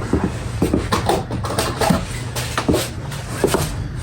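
Irregular knocks and clicks from parts and tools being handled during a countershaft seal job, over a steady low hum.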